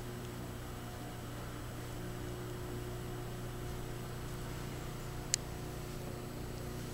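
Steady low electrical hum and hiss of room tone, with a single sharp click about five seconds in.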